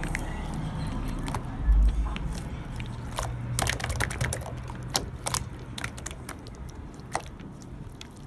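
Soft cloud slime being squished and stretched, giving irregular small clicks and crackles that thin out toward the end.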